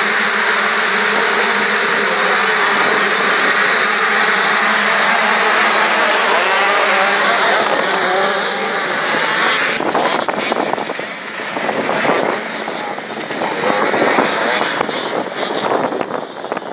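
A large pack of motocross bikes revving hard together at the race start and then accelerating away, engines rising and falling in pitch. In the second half the sound becomes uneven, swelling and fading as bikes go by.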